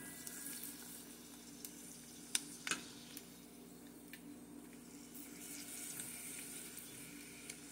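Dried squid frying in shallow oil over low heat: a faint, steady sizzle. A few light sharp clicks come a couple of seconds in as metal tongs turn the pieces against the pot.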